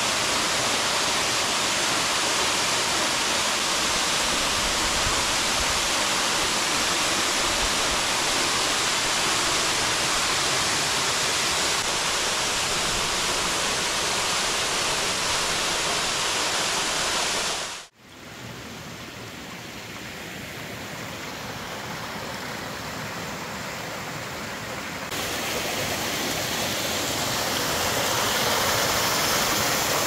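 Mountain waterfall rushing steadily into its plunge pool. About two-thirds of the way through it cuts off for an instant and returns as quieter rushing water that grows louder near the end.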